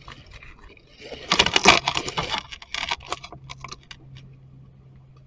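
A close burst of crackling and rustling, loudest about a second and a half in, thinning out into scattered clicks by about four seconds.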